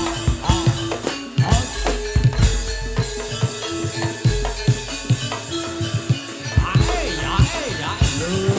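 Jaranan Buto dance music: hand drums played in a fast, busy pattern under short ringing pitched tones, with a melody line that slides up and down in pitch.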